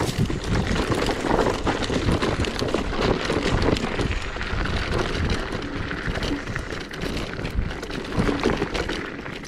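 Zero 10X electric scooter ridden over a leaf-covered dirt trail: tyres rolling over the ground with frequent small knocks and rattles as it bumps along, under steady wind noise on the microphone.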